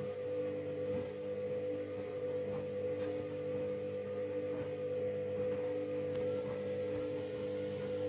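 Candy front-loading washing machine running while its drum turns wet laundry: a steady hum with one clear mid-pitched tone over lower ones.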